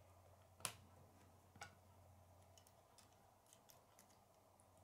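Faint clicks of plastic K'nex pieces being handled and snapped together. There is one sharper click under a second in, another at about one and a half seconds, then a few lighter ticks.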